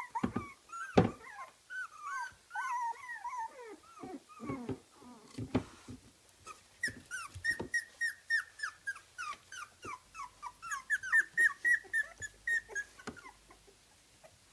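Kooikerhondje puppies about 24 days old whimpering and squeaking in short high calls that drop in pitch, with a few knocks in the first half. From about seven seconds in there is a quick run of squeaks, three or four a second, which stops shortly before the end.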